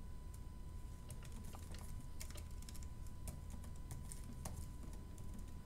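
Faint, irregular key clicks of a MacBook Pro M1's scissor-switch keyboard as a password is typed.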